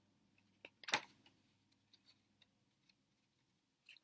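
A few short clicks over quiet room tone, one louder click about a second in and a faint pair near the end.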